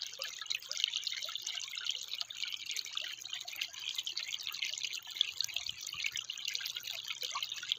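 Shallow water trickling steadily over a bed of pebbles.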